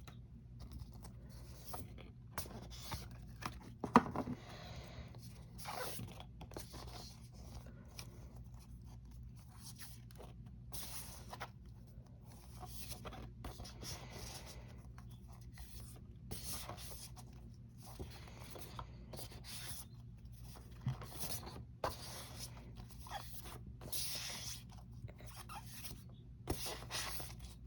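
Cards and packaging being handled: intermittent rustling, sliding and scraping of cardboard postcards, with a sharp tap about four seconds in.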